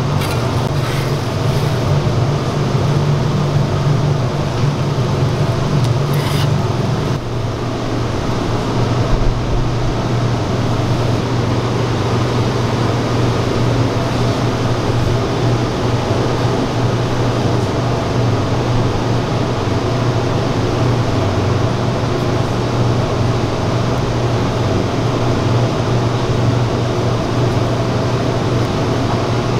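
Steady low mechanical hum of running commercial kitchen equipment, such as a ventilation fan, with a faint hiss over it. The hum's tone shifts slightly about seven seconds in.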